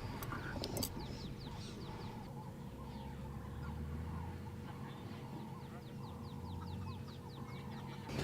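Animal calls: a rapid run of short, high, falling chirps, about three or four a second, over a steady low hum.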